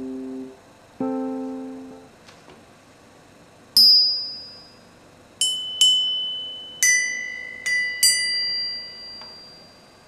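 Three small bell-bronze bells (80% copper, 20% tin) rung by hand: six strikes starting about four seconds in, each a bright, high ring that fades over a second or two, the bells at different pitches. Before that, a plucked note of background music fades out.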